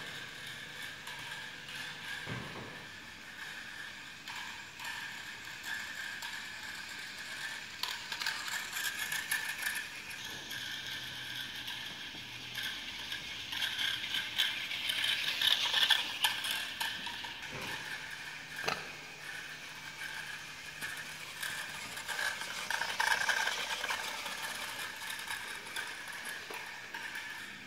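Small Arduino line-following robot's drive motors and gears running, a steady whine with a fine gear rattle, louder around the middle and again near the end. A few separate knocks.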